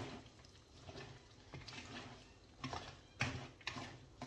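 Handheld wire whisk mixing vegetable pancake batter in a mixing bowl: soft and quiet at first, then from about two and a half seconds in a run of sharp taps about twice a second as the whisk knocks the bowl.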